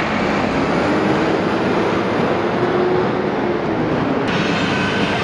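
Steady rumble of fire trucks' diesel engines idling close by, with a faint tone that drifts slightly in pitch.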